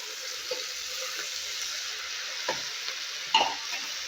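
Rajma and fried onions sizzling in mustard oil in a pressure cooker as they are stirred. The spoon scrapes and knocks against the cooker a few times, loudest near the end.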